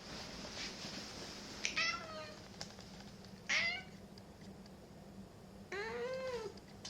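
Domestic cat meowing three times, about two seconds apart: two short meows, then a longer one that rises and falls in pitch. These are the cat's affectionate, attention-seeking calls.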